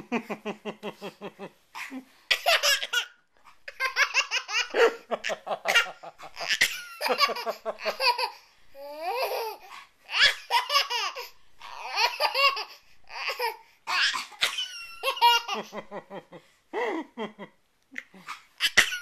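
A toddler laughing hard, in long runs of quick, breathy laugh pulses broken by short pauses and high squeals.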